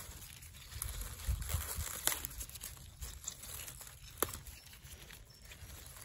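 Rustling of wild garlic leaves and dry leaf litter as a gloved hand works through the plants picking the flower stalks, with a few sharp clicks and low handling bumps.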